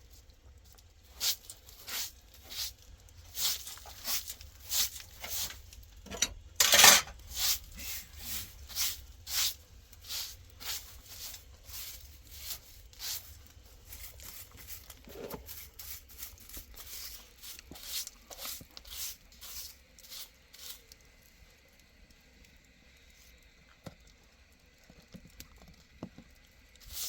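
Footsteps crunching in snow at a steady walking pace, about three steps every two seconds, with one louder, longer crunch about 7 seconds in; the steps fade away after about 20 seconds.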